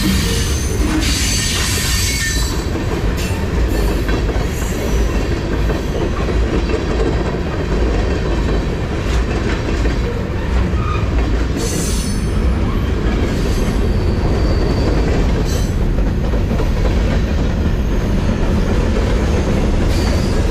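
Freight cars of a long mixed freight train rolling past close by: a steady rumble and clatter of steel wheels on the rails.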